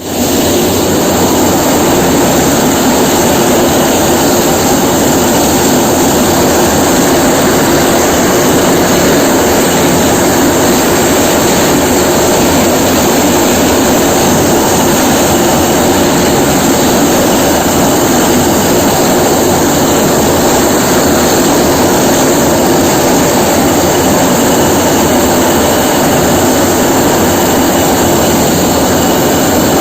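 Solam-cutting machine running steadily, a loud continuous mechanical drone with an even hiss and no pauses.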